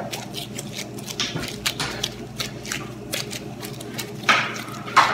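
Plastic disposable gloves crinkling against soft bread dough as hands knead and round it into a ball, a fast, irregular crackle of small clicks. Near the end, a louder rustle and a sharp knock.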